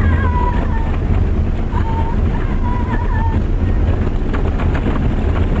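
Off-road vehicle driving fast over desert ground, heard from inside the cabin: a loud, steady low rumble of engine and tyres, with wind noise.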